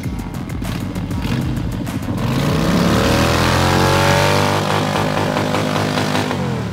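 Motorcycle engine revved up and held at high revs, its note climbing about two seconds in, then holding steady and cutting off near the end, over background music.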